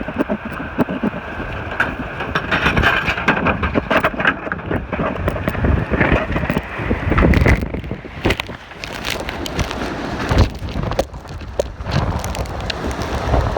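Ford Expedition driving through a wildfire, heard from inside the cabin: a continuous loud rush of wind and fire over a low rumble from the engine and tyres, broken by many sharp knocks and rattles.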